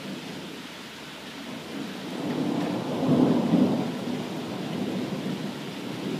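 Steady rain falling on grass and a brick patio, with a roll of thunder that swells about two seconds in, is loudest around three seconds and fades away.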